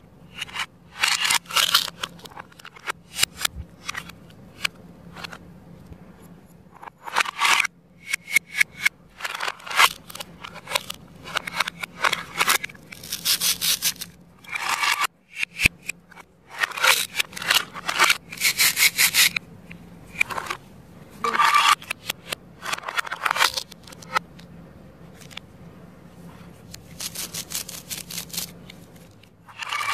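Hook-and-loop (velcro) strips on plastic toy food pieces being pulled apart and pressed together: repeated short crackly ripping bursts, with plastic pieces rubbing and clicking between them and a few quieter stretches.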